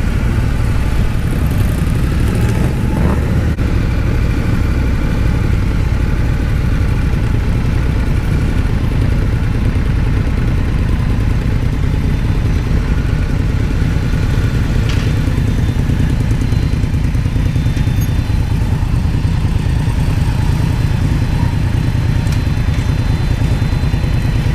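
Indian FTR1200's 1203cc V-twin engine running steadily as the motorcycle rolls slowly at low speed, heard from the rider's seat as a loud, even low sound.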